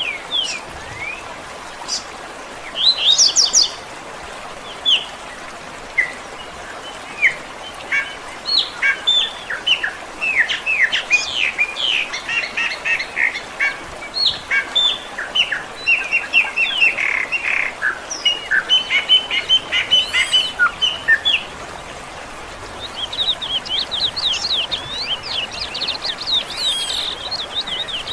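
Small songbirds chirping and singing in quick, short calls. The calls come thickest in the middle, pause briefly, then return as a fast chattering run near the end.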